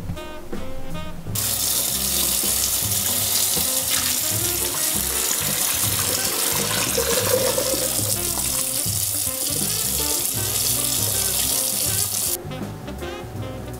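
Water pouring and splashing into a stainless steel sink as a pot of boiled ramen noodles is drained through a mesh strainer and the tap runs. It starts about a second and a half in and cuts off sharply near the end.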